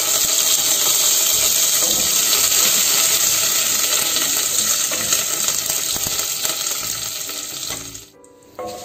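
Curry leaves and green chilies sizzling and crackling in hot ghee with cumin seeds, a dense spattering noise that fades near the end.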